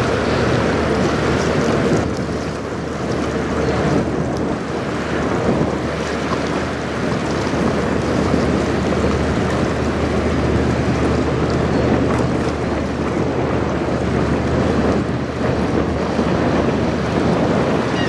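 Wind buffeting the microphone over choppy river water, with a low steady rumble underneath from a passing Great Lakes bulk freighter.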